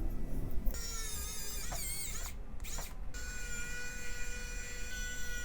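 Electronic tones: a wavering, warbling sound for about two seconds, then a steady high-pitched buzz of several held pitches over a low hum.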